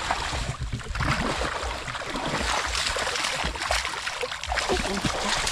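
Shallow muddy water splashing and sloshing irregularly as hands and legs churn through it, grabbing at a fish by hand.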